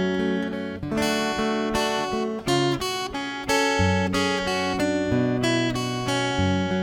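Acoustic guitar strumming chords in an instrumental passage, the chords and bass notes changing about once a second.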